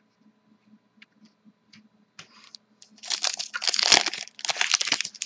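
A hockey card pack wrapper being crinkled and torn open. A few faint ticks come first, then the crackling starts about two seconds in and grows loud and dense for the last two seconds.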